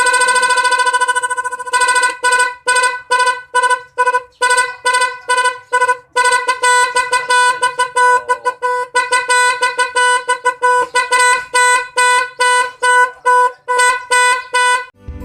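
A 7-sound torpedo horn sounding one steady pitched blast for about two seconds. It then gives a long run of quick on-off toots on the same pitch, at first about two or three a second and later faster and more uneven, before cutting off suddenly near the end.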